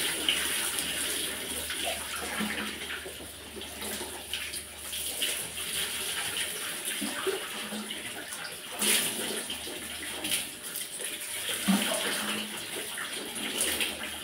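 Water splashing as it is poured from a plastic dipper over a person's head and body and into a basin underfoot, a bucket bath. A few louder pours stand out, near the start, a little past the middle and near the end, with softer water sounds in between.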